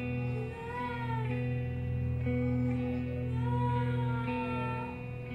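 Background music: a steady low sustained drone under a melodic line that glides up and down twice.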